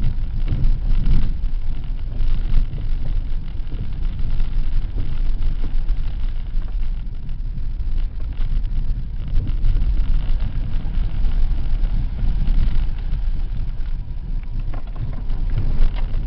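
Steady engine and road noise heard from inside a 4x4's cabin as it drives along a wet, puddled dirt track. The low running of the engine and drivetrain is mixed with tyre noise and many small knocks from the rough surface.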